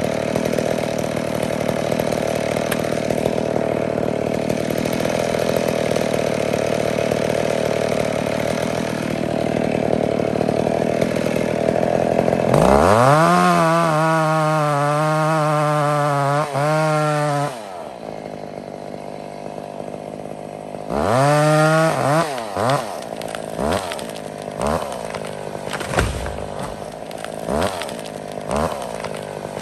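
Old McCulloch 850 two-stroke chainsaw running steadily. About halfway through it is revved up to full throttle and held for several seconds, then drops back to idle. Near the end come a second rev and a series of short throttle blips.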